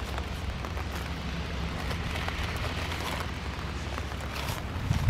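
San'in Shiba puppies biting and chewing napa cabbage leaves: a run of crisp crunches and crackles, over a steady low rumble, with a low thump near the end.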